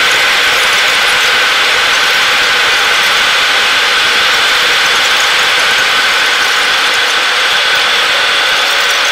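Boeing 737 jet engines and airflow heard inside the cabin on descent: a loud, steady noise with a constant high whine over it.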